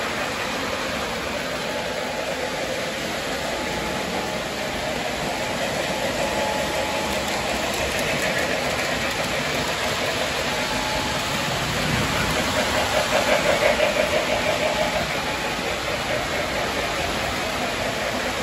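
Electric model trains running on metal track: a steady rolling rumble and whir of wheels and motors, louder with a rapid flutter for a few seconds past the middle as a train passes close.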